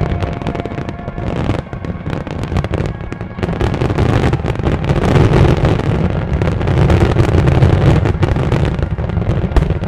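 A dense barrage of large aerial firework shells bursting without pause: overlapping deep booms and crackle merge into one continuous heavy rumble. It swells louder about three and a half seconds in.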